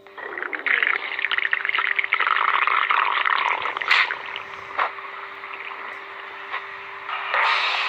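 Stomach growling: a long gurgling rumble through the first four seconds, then quieter irregular gurgles, with another short gurgle near the end.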